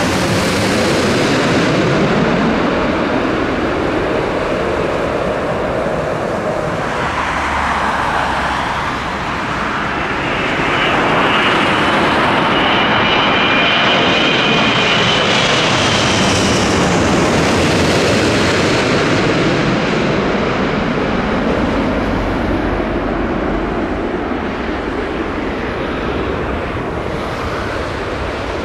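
Airbus A380 jet engines roaring as the four-engined airliner passes, with slowly sweeping tones through the roar. A high fan whine comes in around the middle, and the roar eases a little toward the end.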